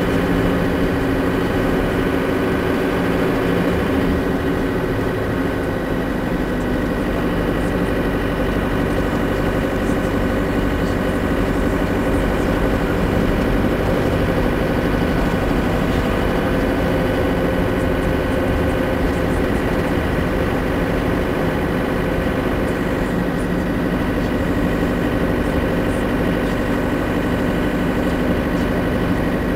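Steady drone of a vehicle's engine and road noise heard from inside its cab while driving at an even speed, with a constant low hum.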